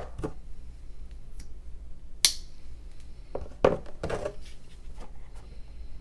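Clicks and knocks of a slip-joint pocketknife and a steel digital caliper being handled on a tabletop as the knife is folded shut and the caliper set around it: one sharp snap about two seconds in, then a cluster of knocks a second or so later.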